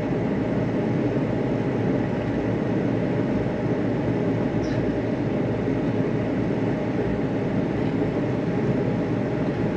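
Steady low rumble and road noise of a moving vehicle, even in level throughout.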